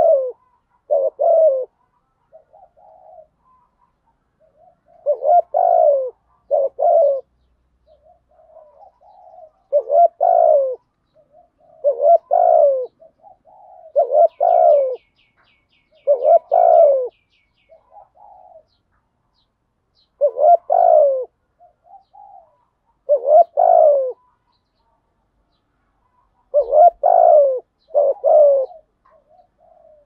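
Spotted dove cooing over and over: phrases of two or three low coos every few seconds. This is the call kept to lure wild spotted doves. A small bird twitters faintly in the middle.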